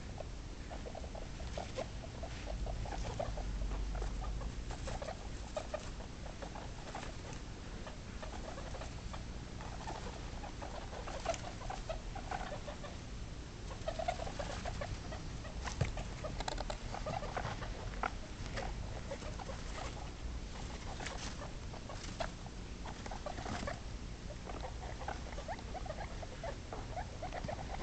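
Guinea pigs making short runs of soft, rapid buzzy calls over and over, with scratchy rustling of wood-shaving bedding as they move about.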